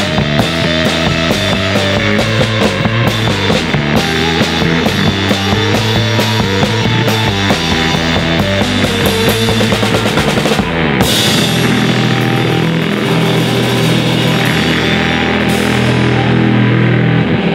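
Rock band playing with a drum kit. About ten seconds in, the drumming gives way to long held chords, closing the song.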